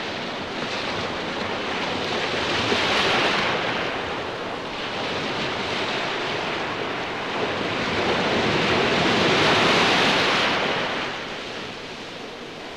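Ocean surf: waves washing in and drawing back, a slow swell of noise with the largest waves about three seconds and ten seconds in, fading near the end.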